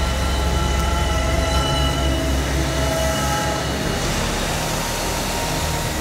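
1100-hp NEXAT wide-span tractor working a field with a short disc harrow: a steady heavy low rumble with several steady whining tones above it.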